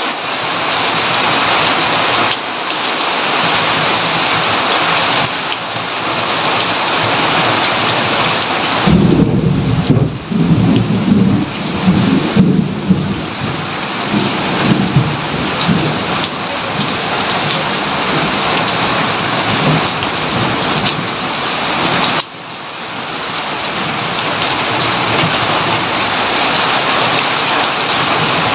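Steady heavy rain hissing, with a rolling thunderclap breaking in about nine seconds in and rumbling for several seconds before fading back into the rain.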